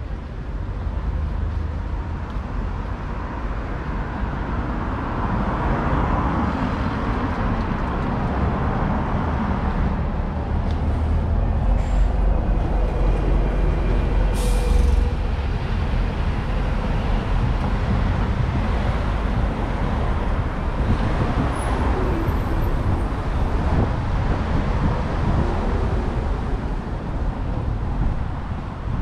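Street traffic with a double-decker bus passing close, its engine rumble swelling about halfway through, and a short sharp hiss of air brakes at the loudest point.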